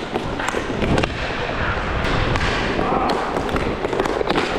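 Roller hockey play: sharp clacks of sticks and puck striking, several times, over a steady rushing noise of inline skate wheels rolling on the rink floor.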